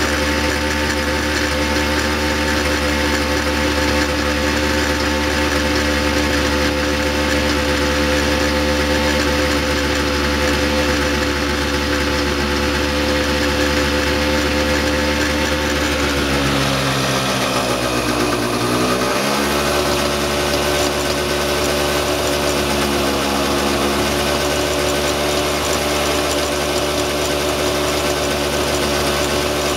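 Microcar engine running steadily. About 16 seconds in, its speed sags over a few seconds and then picks back up to a steady run.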